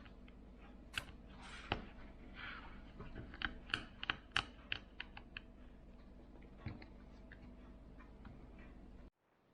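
Small, sharp clicks and taps of hard plastic and metal parts being handled, scattered with a quick run of them in the middle, over a low steady hum; the sound cuts off abruptly near the end.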